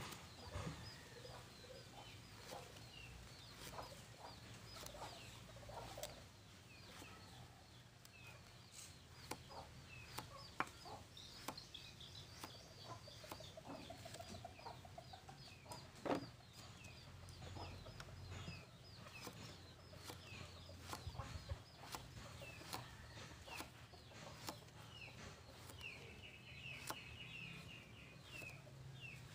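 Kitchen knife slicing eggplant on a wooden chopping board, scattered sharp taps of the blade on the wood, the loudest about ten and sixteen seconds in. Chickens cluck faintly in the background among repeated high bird chirps.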